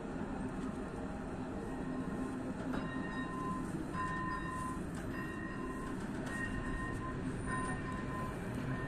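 A regional passenger train running along the track, heard from its last carriage, a BDs450: a steady rumble of wheels and running gear. From about three seconds in, a tone pulses about once a second.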